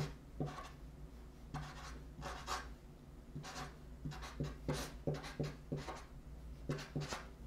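Sharpie felt-tip marker writing numbers in short, faint, irregular strokes.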